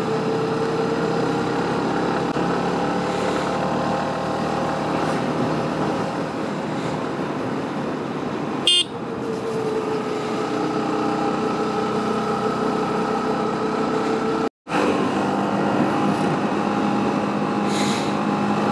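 Motorcycle engine running at a steady cruising speed with road and wind noise, its pitch easing down slightly now and then. A sharp click about nine seconds in, and the sound drops out for a moment about two-thirds of the way through.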